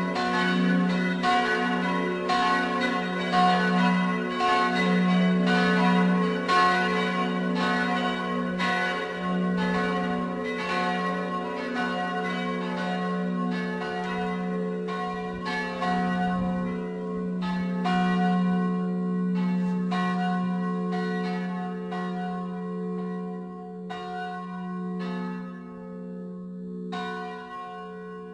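Full peal of church bells, all the bells swinging and ringing together in overlapping strikes over a steady hum. Over the second half the strikes come further apart and the sound fades as the peal dies away.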